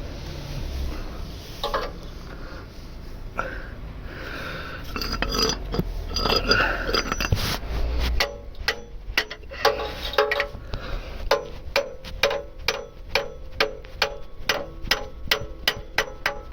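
Hammer tapping a tool into a stuck oil filter's metal canister to punch a hole in it: about eight seconds in, a steady run of sharp metallic taps starts, two to three a second, each with a short ring. Before that, scraping and handling noise as the tool is worked against the filter.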